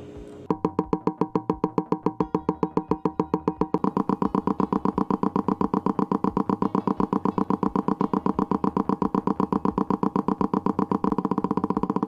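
Motorcycle engines idling one after another for comparison. First comes a single-cylinder with slow, evenly spaced exhaust pulses. From about four seconds in, a 180° parallel twin idles; its two firings come so close together that they blend into one beat, and it sounds like a single. Near the end, the Honda CB450's 360° parallel twin idles with quicker, evenly spaced firings, close to the sound of a four-cylinder.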